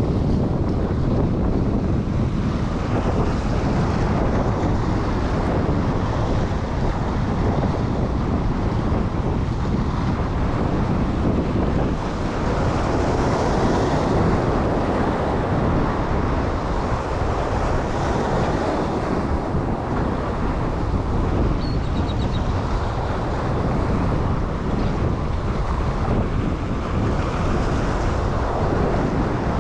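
Wind buffeting the microphone over waves breaking and washing against the rocks of a jetty, a steady rushing noise with a couple of bigger surges midway.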